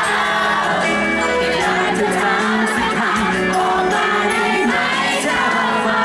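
Live performance of a Thai pop song: a male singer sings into a handheld microphone over the musical accompaniment, with crowd voices underneath.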